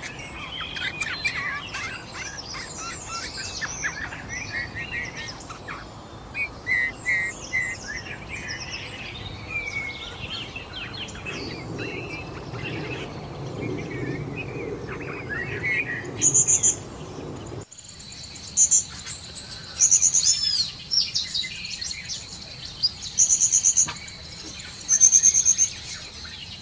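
Songbirds chirping and singing busily, many varied quick calls overlapping. About two thirds of the way through it cuts abruptly to a different recording: a steady high insect-like trill under repeated short, loud, high-pitched bird calls.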